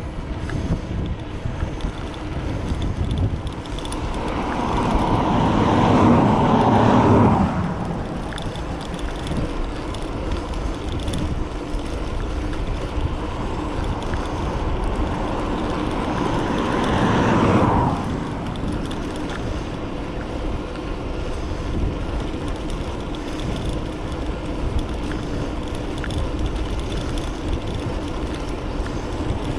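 Wind rumble on a bike-mounted camera microphone while riding an electric bike along a road, with two motor vehicles passing, one about five to seven seconds in and another about seventeen seconds in.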